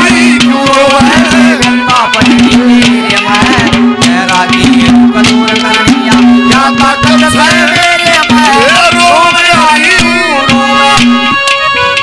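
Live Haryanvi folk ragni accompaniment: rapid hand-drum strokes under a wavering melody line and a steady held drone. The music stops abruptly about a second before the end.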